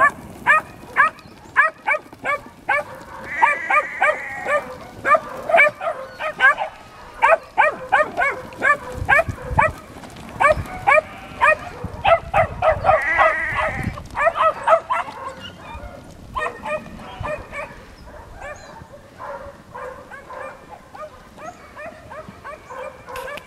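Kelpie puppies barking while working sheep: a fast run of short, sharp barks, about two or three a second, fading after about sixteen seconds. Sheep bleat now and then among the barks.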